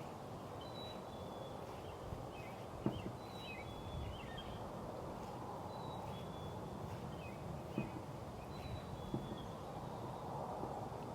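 Birds chirping in short, high calls every second or two over a steady low rush of background noise, with a few faint knocks.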